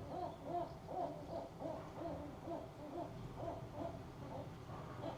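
A gull calling with a run of short, low, hooting notes, about three a second.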